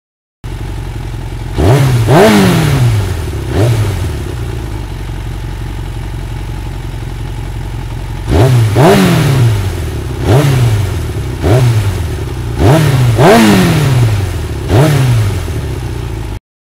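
A vehicle engine idling and being revved in short blips, about ten times. Each time its pitch shoots up and then falls back to idle, with a lull of a few seconds between the first few revs and the rest.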